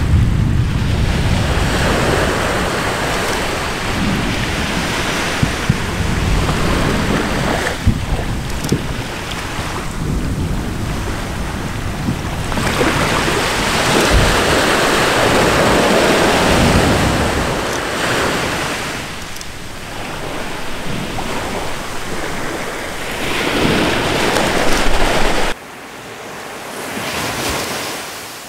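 Volcanic eruption of Anak Krakatau heard with wind on the microphone: a loud, deep rushing noise that swells and fades in surges, with a few sharp cracks. About three seconds before the end it drops suddenly to a quieter level.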